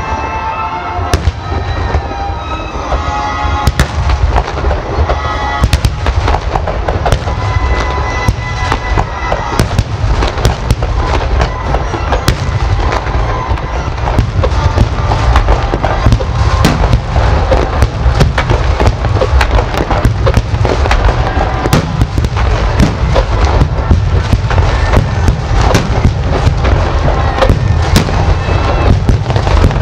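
Fireworks display: a rapid, continuous barrage of aerial shells bursting and crackling, sparser at first and growing denser and louder after about four seconds and again midway.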